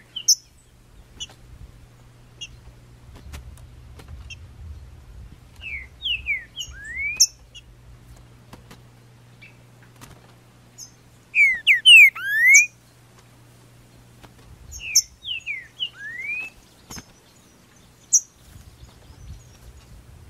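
Green-winged saltator (trinca-ferro) singing: three short phrases of quick sliding notes, a few seconds apart.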